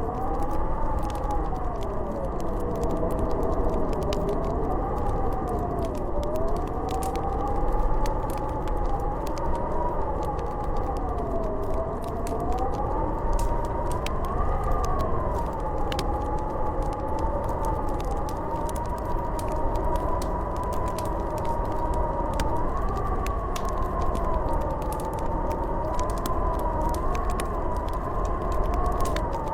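Howling blizzard wind: a wavering whistle that slowly rises and falls in pitch over a low rumble, with scattered small crackles and pops of a wood fire throughout.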